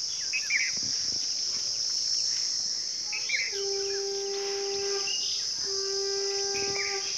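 Steady high-pitched drone of an insect chorus, with a few short bird chirps. In the second half a steady low pitched tone sounds twice, each time for about a second and a half.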